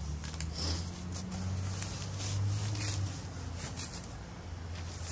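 Plastic wrapping crinkling and rustling as a long plastic-wrapped metal tube is pulled out of a cardboard box, over a steady low rumble.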